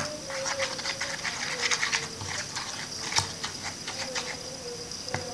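A plastic stirring stick clicking, tapping and squishing in a runny glue-and-borax slime mixture in a plastic lid, with irregular strokes. The mixture has not set into slime.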